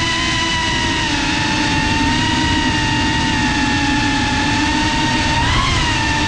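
FPV quadcopter's brushless motors and propellers whining steadily over a rushing noise, as heard from the GoPro mounted on the drone. The pitch rises briefly about five and a half seconds in, then settles again.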